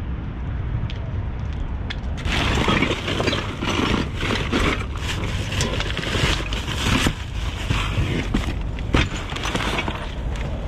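Rummaging through trash in a dumpster: a dense clatter of rustling, scraping and knocking objects, starting about two seconds in.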